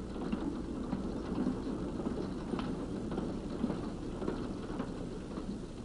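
Empty steel gondola freight cars rolling along the track, a steady low rumble with occasional faint clicks from the wheels.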